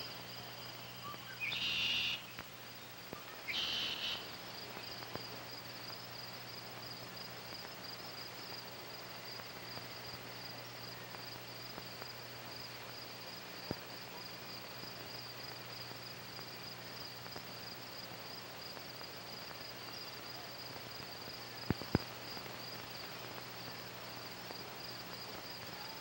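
Insects chirring steadily in a high, finely pulsing chorus, with two louder short calls about two and four seconds in. A faint low hum runs underneath, with a few faint clicks.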